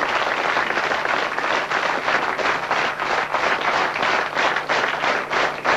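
Theatre audience applauding a performer. Many hands clap together, and the claps grow more distinct and regular toward the end.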